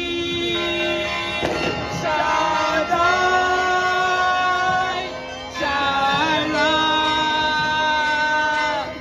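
A woman singing a worship song into a handheld microphone, amplified, holding long drawn-out notes with slow bends in pitch rather than clear words. The longest note runs through the second half.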